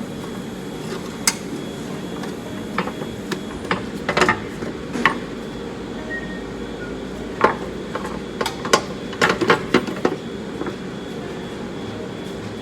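Irregular metallic clinks and knocks of tools at work on a car during a steering rack replacement, several in quick succession between about 7 and 10 seconds in, over a steady low hum.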